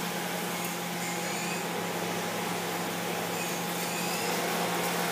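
Mazak Integrex i200ST mill-turn CNC machine cutting a part behind its closed door: a steady whir and hiss of the running spindle and coolant spraying against the window, with a steady hum underneath.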